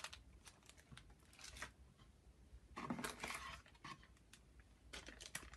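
Faint crinkling of a small plastic bag of ball bearings being handled, in a few short bursts with the clearest about three seconds in.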